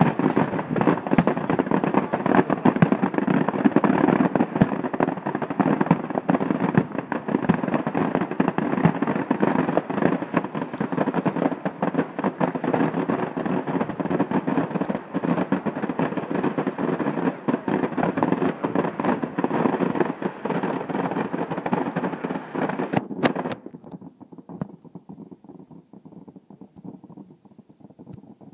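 Distant fireworks display: a dense, continuous run of bangs and crackling. About 23 seconds in it drops off sharply, leaving only faint scattered pops.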